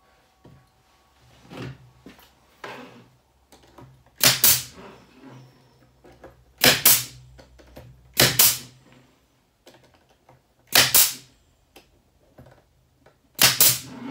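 Brad nailer firing 2-inch wire brads into wood: five sharp shots, each a quick double crack, about two to three seconds apart. A few fainter knocks come before the first shot.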